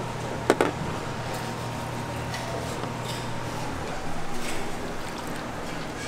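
Steady low hum of kitchen equipment, with two sharp clicks about half a second in, then a short stretch of splashing about four seconds in as a ladle scoops broth from a stock pot.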